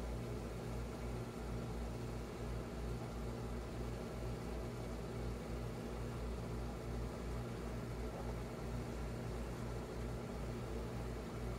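Steady low electrical hum over a hiss from a reef aquarium's running pumps.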